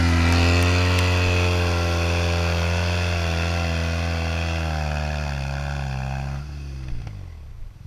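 BMW R1200 GS adventure motorcycle's boxer-twin engine held at high revs with its rear wheel spinning in deep sand, the bike stuck and being pushed. About six and a half seconds in, the revs fall away and the engine note drops out.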